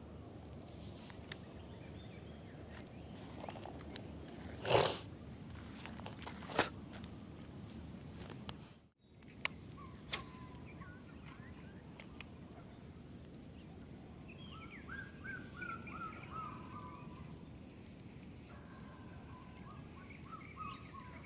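Outdoor ambience: a steady high-pitched insect drone, with short bird chirps in the second half and a couple of knocks from handling. The sound drops out briefly about nine seconds in.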